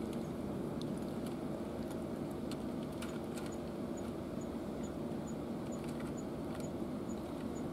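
A steady low drone like an idling engine, with faint steady tones in it. From about three seconds in, a faint high tick repeats about twice a second.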